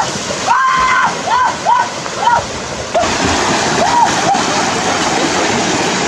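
Fast, muddy stream rushing, with a person splashing through the water. Over it come short calls that rise and fall in pitch: several in the first half and two more about four seconds in. The water grows louder and fuller in the second half.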